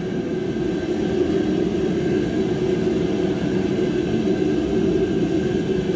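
A steady mechanical drone, a constant hum from a motor or fan running without change throughout.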